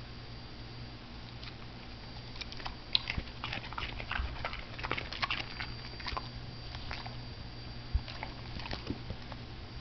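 A dog munching broccoli: a quick, irregular run of crisp crunches that starts about a second and a half in, is densest in the middle and thins out near the end, over a steady low hum.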